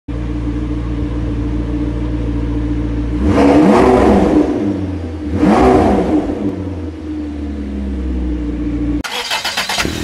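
McLaren 650S's twin-turbo V8 idling, then revved twice, about three and five seconds in, the pitch climbing and falling back each time. It cuts off suddenly near the end as intro music comes in.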